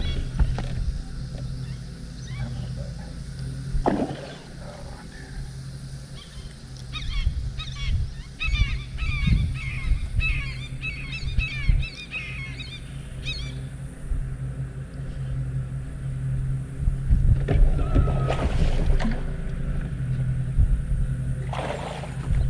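Bow-mounted electric trolling motor humming steadily under wind buffeting, while birds call in a quick chattering run about a third of the way in. A few brief knocks come from the boat.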